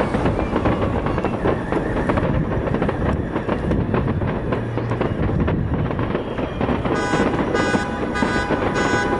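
Fireworks display: a dense run of bangs and crackles from shells bursting, over a continuous low rumble. About seven seconds in, a high, pitched sound joins, pulsing a few times a second.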